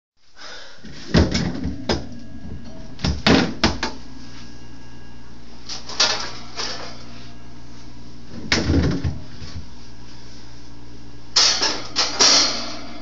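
Knocks, bumps and a door being handled as a person squeezes into a household refrigerator, in irregular clusters with the loudest near the end, over a steady low hum.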